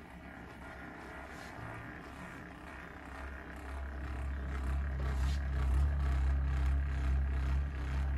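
Handheld percussion massage gun running against a person's back: a steady low hum that comes in about three seconds in and grows louder.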